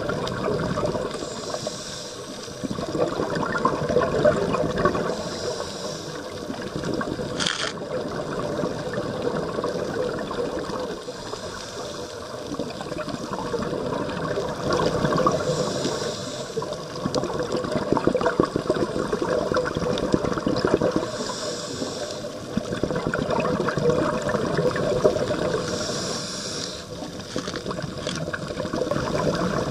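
Underwater sound of scuba divers breathing through their regulators: gurgling bursts of exhaled bubbles, and a thin hiss of an inhale every few seconds.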